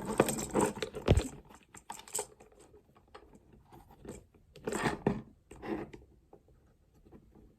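Hard plastic toy parts clicking and rattling as a Transformers action figure and its add-on accessories are handled and pulled apart, in a few short bursts, with one louder knock about a second in.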